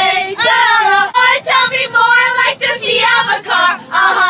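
A group of young women singing along loudly together.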